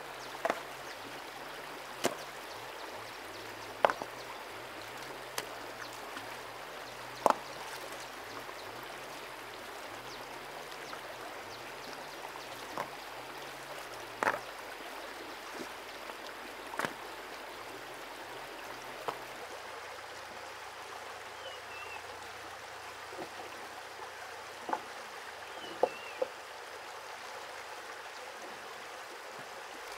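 Shallow stream running over stones, with sharp knocks every second or two as river rocks are set down against other rocks; the knocks thin out in the later part.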